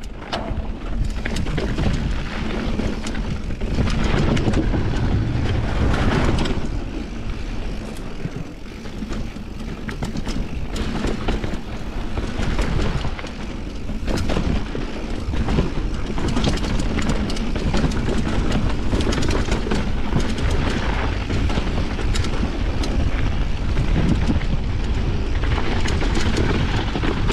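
Full-suspension mountain bike descending a dirt trail at speed: a continuous rumble of knobby tyres on dirt and gravel, with the frame and chain clattering over bumps in many sharp knocks. Wind buffets the camera's microphone throughout.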